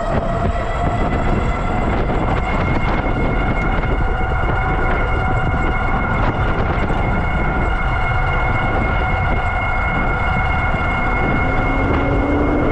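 Electric bike hub motor whining under power at speed, its pitch creeping up slightly at first and then holding steady, over wind rumbling on the microphone.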